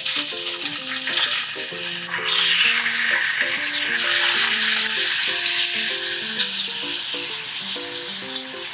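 Slices of pork belly sizzling in a hot cast-iron skillet as they are laid in with tongs; the sizzle grows louder about two seconds in as more slices go in, and stays steady. A light plucked-note background melody plays underneath.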